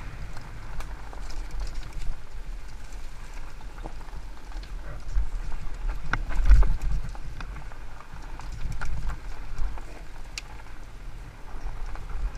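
Fat-tyre electric mountain bike descending a rough dirt singletrack: low rumble of wind and trail vibration on the mounted camera, with scattered clicks and knocks as the bike rattles over rocks and roots. The heaviest jolt comes about six and a half seconds in.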